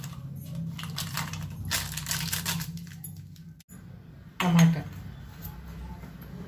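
Crinkling and rustling of a foil seasoning sachet as it is shaken and tapped over a steel mixer jar. Near the end come a few light metallic clinks as cut tomatoes are tipped in from a steel bowl.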